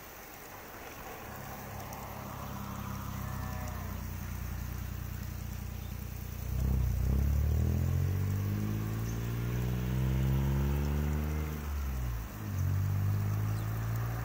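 A motor engine running close by, growing louder over the first few seconds and then louder still about halfway through, its pitch rising and falling, with a brief dip near the end.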